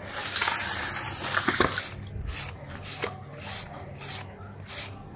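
Vegetable being shredded by hand on a grater: repeated rasping scrapes, about three strokes a second, as shreds fall into a plastic basket.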